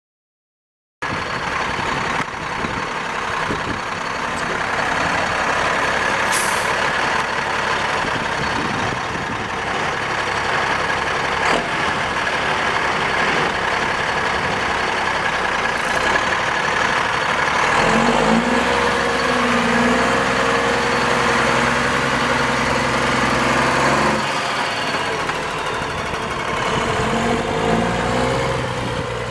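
1994 Freightliner FLD112 semi truck's Cummins L10 10-litre inline-six diesel idling, with a brief hiss about six seconds in. Around eighteen seconds in the truck pulls away: the engine note rises, drops off about six seconds later and rises again near the end.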